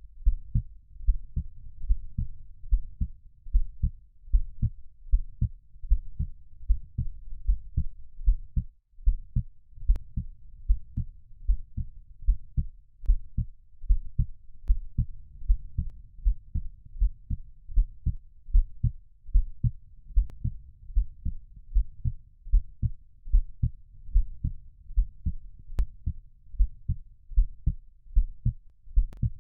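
Slow, steady heartbeat sound, a regular run of low, muffled thumps in lub-dub pairs, played as a soothing sleep sound for babies.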